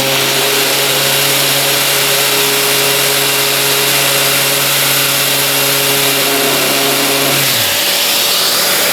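Mirka sander running steadily on a small workpiece, then switched off and winding down about seven and a half seconds in. A steady hiss from the vacuum pump holding the piece runs underneath.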